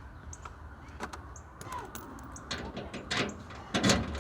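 Metal clicks and clunks of a truck toolbox's newly fitted lock and latch being worked by hand, with a few scattered clicks, then a run of quick knocks, the loudest near the end.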